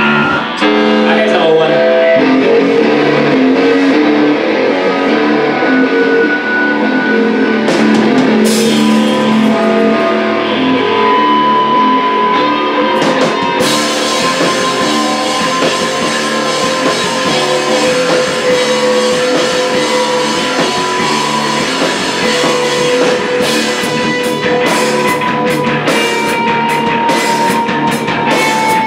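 Live rock band playing an instrumental passage: electric guitars, bass guitar and drum kit, with long held guitar notes. The cymbals come in hard about 14 seconds in and keep going.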